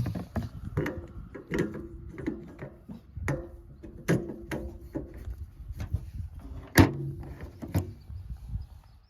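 A series of irregular knocks and clanks, some followed by a brief ringing, over a low rumble. The loudest knock comes a little under seven seconds in.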